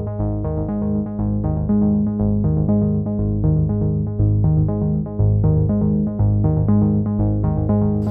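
Background electronic music with a steady beat: repeating synthesizer and keyboard notes over a pulsing bass line.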